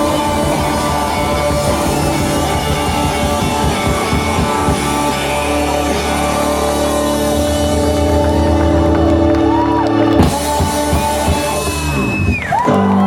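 Live rock-and-roll band playing with drum kit and sustained chords, loud and dense. The playing breaks off sharply about ten seconds in, and held notes carry on to the end.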